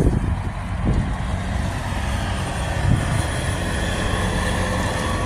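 Steady low rumble of a running vehicle, with a faint whine slowly rising in pitch.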